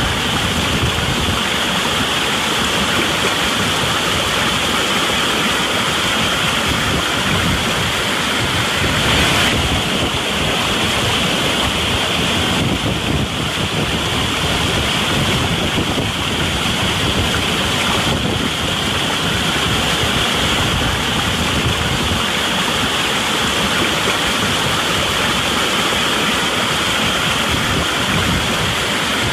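Waterfall pouring steadily, a constant rush of falling water.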